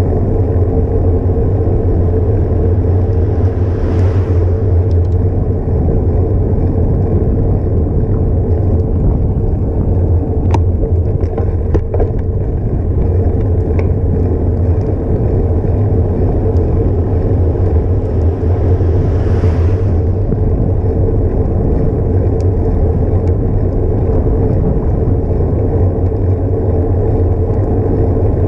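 Wind and road noise on a bicycle-mounted action camera while riding: a steady loud rumble, with two brief swells of hiss, one about four seconds in and one near twenty seconds, and a few faint clicks in between.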